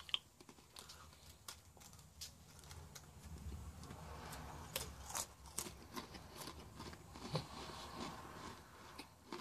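Faint, irregular crunching and clicking of a plain MRE cracker being bitten and chewed.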